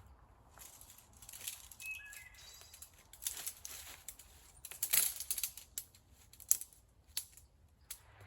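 Irregular rustling and sharp clicks, loudest about five seconds in, with a few brief high chirps about two seconds in.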